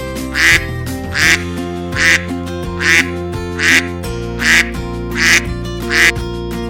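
A duck quacking: about eight evenly spaced quacks, a little more than one a second, over background music.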